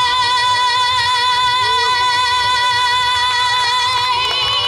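A young female singer holding one long final note with vibrato, unbroken, over backing music.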